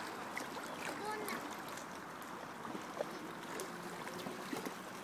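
Small waves lapping and splashing on a lake, many little splashes over a steady wash, with faint voices now and then.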